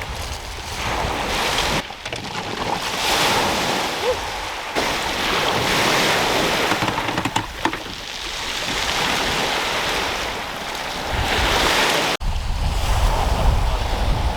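Sea waves washing onto a beach, the surf swelling and ebbing every few seconds, with wind buffeting the microphone, heaviest in the last couple of seconds.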